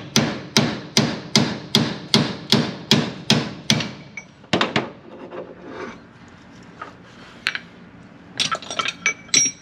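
Steel hammer striking the grain tank auger's bearing and shaft in a combine, a steady run of about ten blows, two and a half a second, for about four seconds. Two more blows follow, then a few lighter metal clinks near the end, as the bearing is worked loose for replacement.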